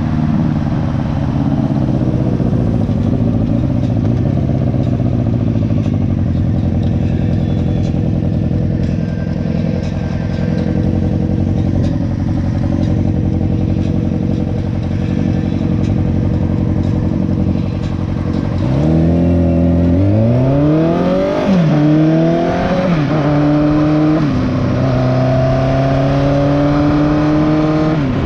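Motorcycle engine, whose exhaust has a leak, running steadily at low revs, then accelerating hard about two-thirds of the way in: the pitch climbs, drops back at two upshifts and climbs again before settling to a steady cruise.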